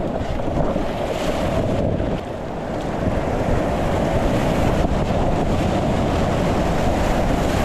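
Rushing whitewater of a river rapid, a loud, steady wash of water noise, with wind buffeting the microphone.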